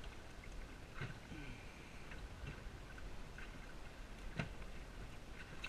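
Scattered light knocks and clicks from gear being handled aboard a small inflatable boat, over a low steady rumble, with the sharpest knock near the end.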